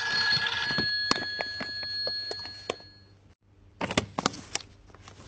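A phone ringtone: steady high tones over a hiss with a run of regular clicks, cutting off about three seconds in. Just before four seconds in comes a short cluster of clicks and knocks.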